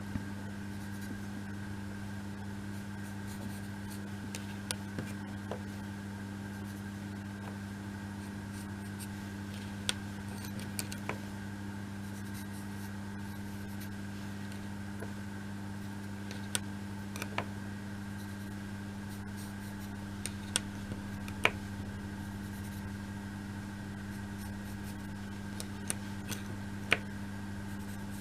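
Occasional light clicks and taps as small laser-cut kit parts are handled and glued on a tabletop, over a steady low hum.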